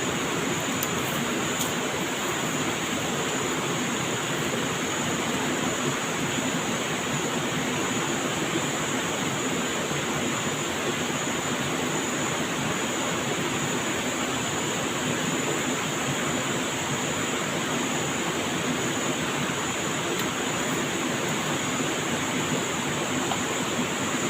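Steady rushing water noise with no breaks, with a thin, steady high-pitched whine above it.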